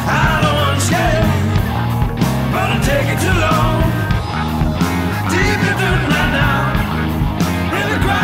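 Blues-rock band recording with drums, bass and guitars, and a voice singing over it.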